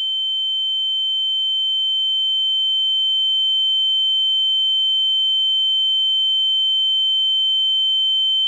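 A steady, high-pitched electronic tone: one pure whine with fainter tones above and below it. It swells slowly in loudness over the first few seconds and then holds level.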